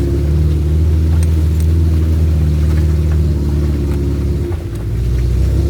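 Off-road vehicle's engine running steadily, easing off briefly about four and a half seconds in and then picking up again, with a few faint clicks and rattles.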